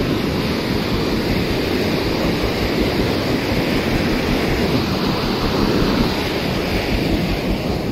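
Fast, turbulent river rushing in white water, a steady loud noise.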